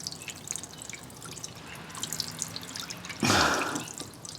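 Water dripping and trickling out of a Samsung front-load washer's drain pump filter plug, where it leaks past a cracked seal, with a brief louder rush about three seconds in.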